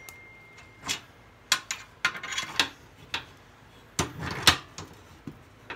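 A camera being handled up close: a string of sharp clicks, taps and rubs against the body and microphone, the loudest a pair of heavier knocks about four seconds in. A faint steady high tone sounds during the first second.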